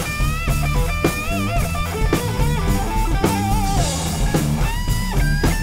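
Background rock music: a guitar playing sustained lead notes with bends and vibrato over bass and a drum kit.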